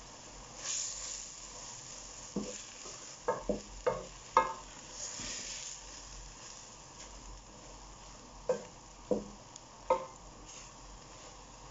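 Wooden spatula stirring boiled rice and mung beans through a metal cooking pot over a faint sizzle, scraping through the food. It knocks sharply against the pot several times: a cluster of about five knocks two to four and a half seconds in, and three more near the end.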